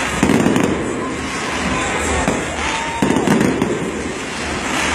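Stadium fireworks display going off, with sharp bursts just after the start and again about three seconds in over a continuous dense crackle.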